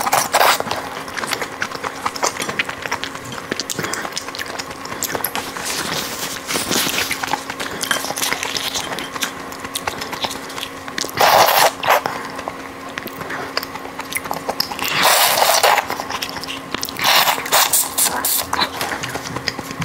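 Close-miked eating of a large red prawn: small crackles and clicks of the shell being pulled apart, with a few louder noisy bursts of sucking at the meat and head, about 11, 15 and 17 seconds in.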